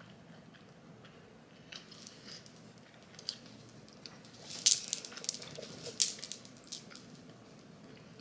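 A person chewing and biting into fried chicken: scattered crisp crunching clicks, sparse at first, then a denser, louder run in the second half.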